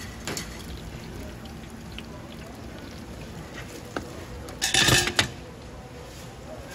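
Cooking clatter at a deep-fry stall: steel tongs handling fried shrimp over hot oil with a steady sizzle, then wooden spatulas scraping and knocking in a metal wok of sauce, loudest in one clattering burst about five seconds in.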